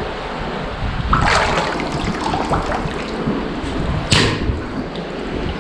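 Fast-flowing water rushing steadily, with a splash about a second in and a sharper splash about four seconds in.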